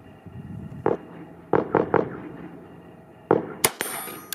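Short metallic clicks and knocks as a break-action shotgun is loaded and closed. Near the end comes a sharp gunshot: a 17 HMR round fired through an 8-inch Short Lane rifled caliber adapter in an H&R Topper 88 single-shot 12 gauge shotgun, with a second sharp crack about half a second later.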